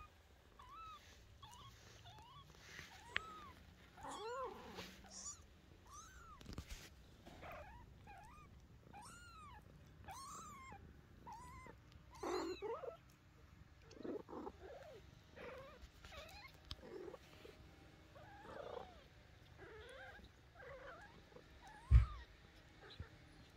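Newborn kittens mewing over and over in short, high squeaks, over the mother cat's low, steady purr. One loud thump near the end.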